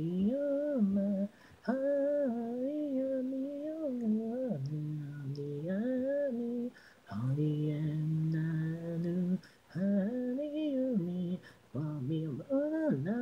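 A woman's solo singing voice with no accompaniment, the vocal track of a J-pop anime idol song heard on its own. She sings a melody in short phrases with sliding notes, breaking off briefly between them.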